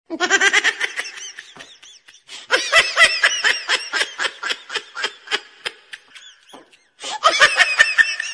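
High-pitched giggling laughter in rapid bursts, in three bouts, with short breaks about two seconds and about seven seconds in.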